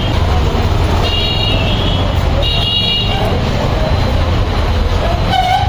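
Road traffic rumbling steadily, with vehicle horns tooting three times: about a second in, around two and a half seconds in, and briefly near the end.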